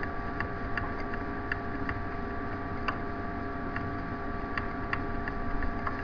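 Steady background hiss with a constant electrical hum, and faint clicks at irregular intervals.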